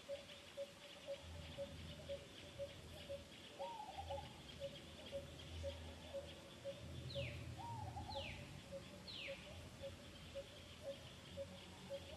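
Faint birdsong: a short low note repeated steadily about twice a second, with three quick falling whistles a second apart in the middle, over a faint high hiss.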